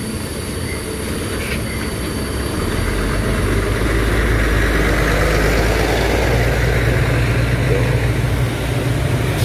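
Large diesel coach bus driving slowly past close by: a low engine drone that builds about two to three seconds in, loudest as the bus draws level, with tyre and road noise, then easing slightly near the end.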